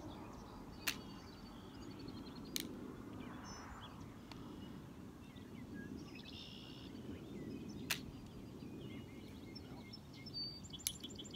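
Four sharp metallic clicks from a flintlock pistol's lock, with no shot going off, over light birdsong.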